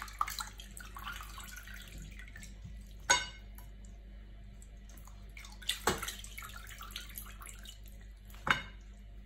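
Water sloshing and dripping as raw mutton chunks are rinsed by hand in a pot of water, with three sharp clinks of meat or hands against the pot and plate, the loudest about three seconds in.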